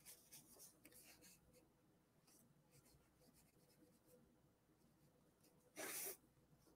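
Faint soft rubbing and dabbing of a folded paper towel on inked sketchbook paper: a few light strokes early, then one short louder rub near the end.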